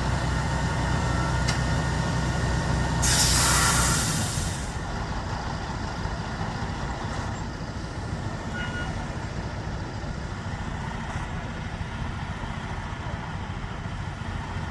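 Low steady idle of a diesel engine, then a loud hiss of compressed air from air brakes about three seconds in, lasting about a second and a half. After the hiss the engine hum drops away, leaving a low steady rumble.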